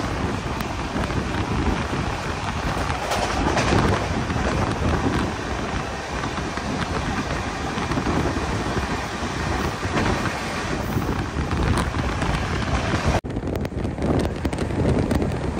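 Express train running at speed, heard from on board: a steady, loud rush of wheel, track and wind noise. The sound drops out for an instant about thirteen seconds in and comes back duller.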